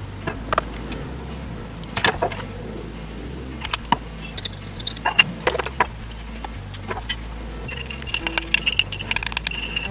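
Metal spoon clinking and scraping against a small ceramic bowl as a mayonnaise dipping sauce is stirred, with rapid clinks in the last couple of seconds. Scattered knocks come earlier, as bottles and jars are handled on a tiled counter. Background music plays underneath.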